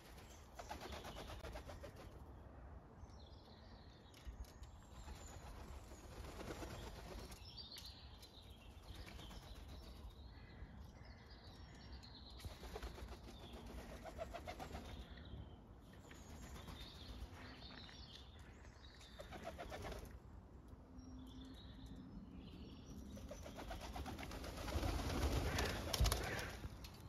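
White doves' wings flapping as they take off and land, in several short flurries, the loudest and longest near the end as the flock flutters onto a window sill. Bird chirps come between the flurries.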